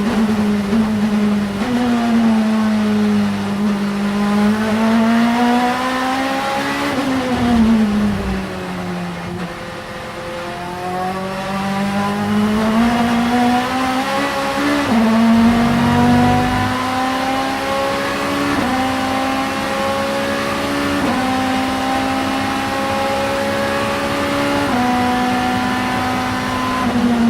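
Vauxhall Vectra supertouring race car's 2-litre engine under hard driving: the revs fall off and build twice, then climb through the gears in steady rising pulls, each cut short by a quick upshift drop about four times in the second half.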